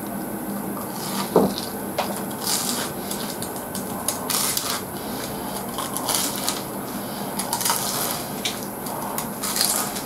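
Close-up chewing of a mouthful of crisp, breaded fried food, heard as a series of irregular crunches and crackles.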